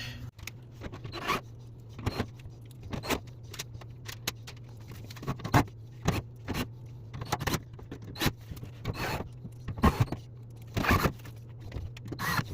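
Irregular clicks, knocks and scrapes of washing-machine parts being handled, over a steady low hum.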